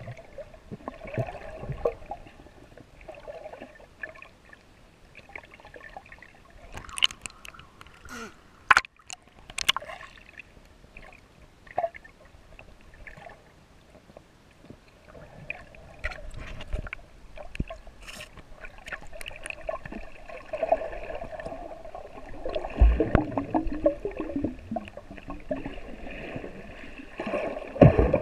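Water sloshing and gurgling against a GoPro held in the water while snorkeling, with scattered sharp clicks and knocks, louder near the end.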